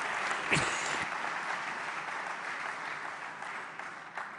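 Audience applauding, the clapping fading away toward the end, with a short falling tone about half a second in.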